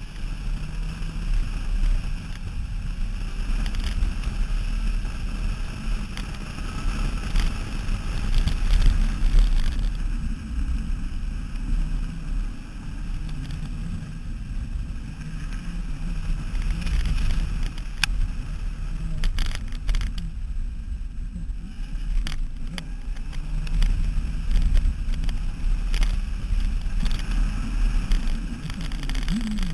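Mini Cooper S driven hard through an autocross course, heard from a microphone mounted outside the car low by the rear wheel: a heavy wind rumble on the microphone mixed with engine and tyre noise, swelling and easing as the car accelerates and slows, with a few brief clicks about two-thirds of the way through.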